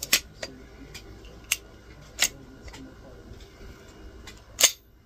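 Suppressed 9mm CZ Scorpion S3+ carbine with an Omega 9K silencer firing single shots: four sharp cracks at uneven spacing, the last the loudest, with a few fainter pops in between.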